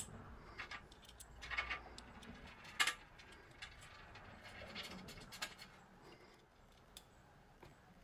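Small metal parts of a vise stop clicking and clinking together as they are fitted by hand: a scatter of light, irregular clicks and taps, the sharpest about three seconds in.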